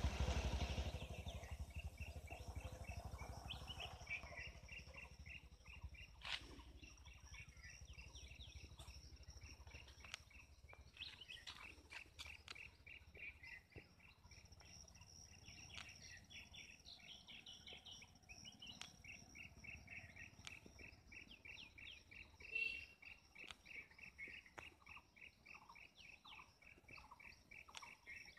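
Faint rural forest ambience: birds chirping in quick, repeated notes over a steady high-pitched insect drone. A low rumble of noise on the microphone fades out over the first second or two.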